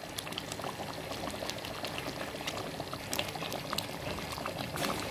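Thick chicken-and-potato curry bubbling and spluttering in the pot at the bhuna stage, with the oil risen to the top: a steady hiss with many small pops.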